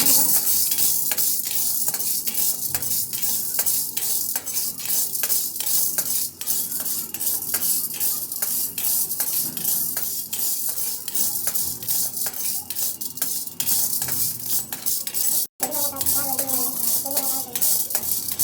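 Small metal pieces rattling and clinking against each other over a steady high hiss, such as cartridge parts being handled or stirred in a metal tray. It breaks off for an instant about three-quarters of the way through, then goes on.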